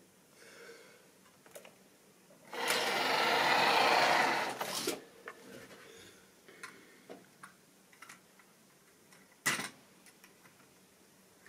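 Model railway train running along the track for about two seconds, the loudest sound here: a dense mechanical whirr of its motor and wheels on the rails. Light clicks of rolling stock being handled come before and after it, with one sharp click near the end.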